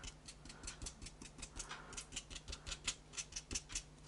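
Stiff, short-haired paintbrush dry-brushing paint over a foam-board cobblestone surface: quick, faint scratchy strokes, about six a second.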